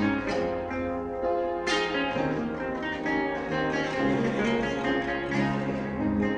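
Instrumental music led by plucked guitar, with sustained notes and a fresh plucked chord about one and a half seconds in.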